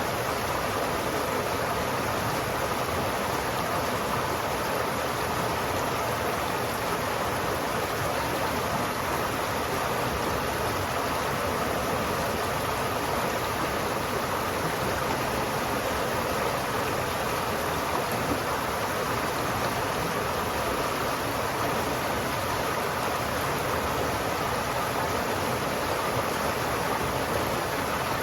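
River water flowing steadily, a continuous rushing hiss without breaks or distinct splashes.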